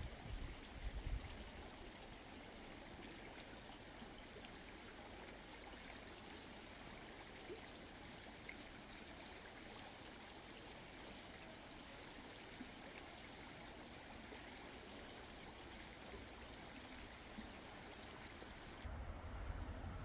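Faint, steady rushing of flowing water, like a stream, with a few low thumps in the first second or so.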